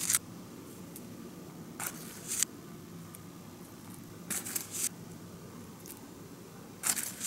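Small plastic spoon scooping powder out of a foil-lined paper pouch and tipping it into a plastic tray: short bursts of scraping and rustling, four in all about two seconds apart, over a faint steady low hum.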